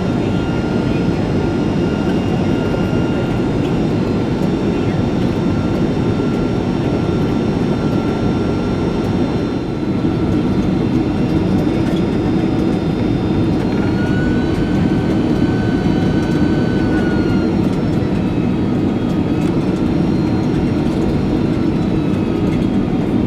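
Boeing 767-300 cabin noise on the descent: a steady loud rush of airflow and jet engine noise with thin, steady whining tones. About 14 s in, one whine steps up in pitch, holds for a few seconds and eases back down.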